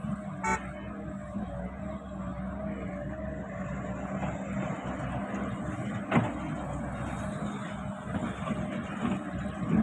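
Hydraulic excavator's diesel engine running steadily, with a brief horn toot about half a second in and a sharp knock about six seconds in.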